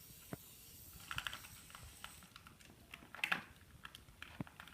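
Light scattered clicks and taps of small plastic toy pieces being handled, louder a little over a second in and again about three and a half seconds in.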